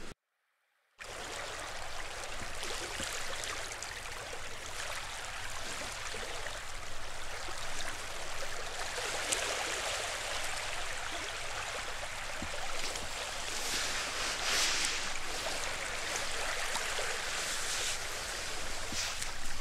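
About a second of dead silence, then shallow surf washing over a flat sandy beach: a steady hiss of water that swells a couple of times as waves wash in.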